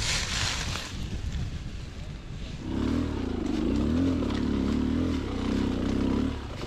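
Dirt bike engine running with a wavering, uneven pitch, coming in about two and a half seconds in. A short rush of noise comes at the start.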